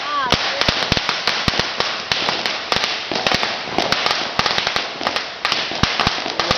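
A long string of Chinese firecrackers going off: rapid, continuous crackling with louder sharp bangs scattered through it, without a break.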